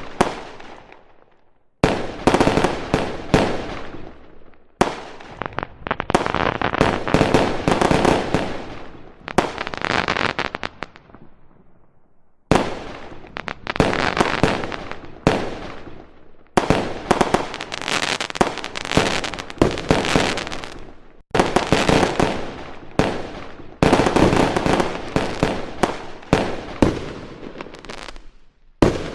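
Fireworks going off in rapid volleys of bangs and crackling, each burst dying away. There are short lulls between the volleys.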